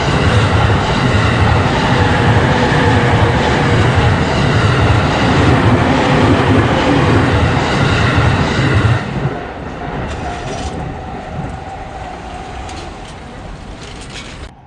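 Train passing at a level crossing, its wheels rumbling and clattering over the rails, loud at first. The passing sound drops off sharply about nine seconds in and fades away.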